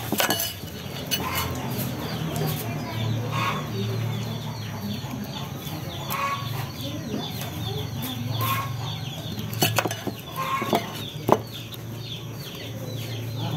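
Chickens clucking and peeping over and over, over a steady low hum, with a few sharp knocks, the loudest about eleven seconds in.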